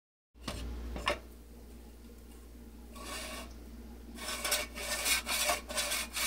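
A plastic Kodak Carousel slide tray being handled on the projector: a click about a second in, then repeated scraping and rubbing of plastic against plastic that grows busier in the second half. A low steady hum runs underneath.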